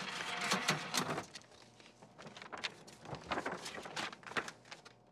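A drinks vending machine finishing a dispense into a paper cup, a noisy rush in the first second that stops abruptly, followed by scattered light clicks and taps.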